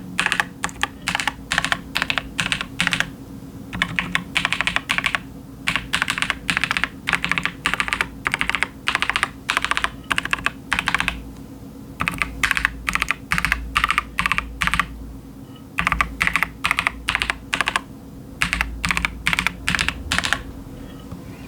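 Typing on a KiiBOOM Phantom 81, a gasket-mounted 75% mechanical keyboard with its stock KiiBOOM Crystal switches and crystal keycaps: quick runs of keystrokes broken by short pauses. A steady low hum runs underneath.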